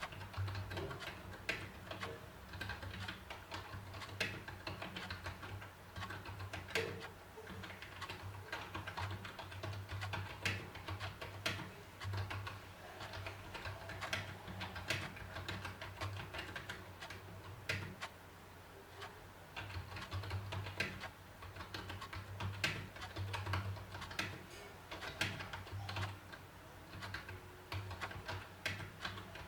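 Typing on an HP 100 wired USB membrane keyboard: a continuous, irregular run of key clicks, several strokes a second.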